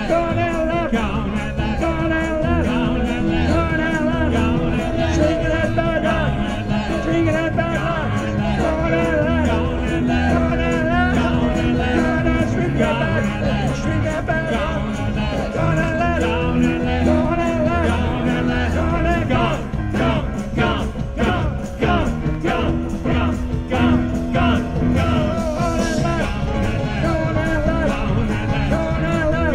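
Live rock band playing an instrumental jam: wavering lead lines over bass and drums, with a run of sharp, evenly spaced drum hits about two-thirds of the way in.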